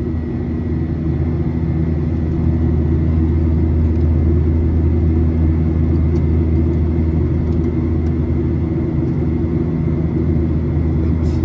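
Steady low rumble of a Boeing 737-900ER's jet engines heard inside the passenger cabin, with a few steady low tones in it, growing slightly louder about two and a half seconds in. A few faint clicks sit on top.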